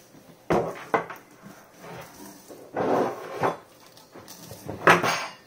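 Cardboard shipping box being shifted and its flaps handled: a few short scraping knocks and rubs of cardboard, the loudest near the end.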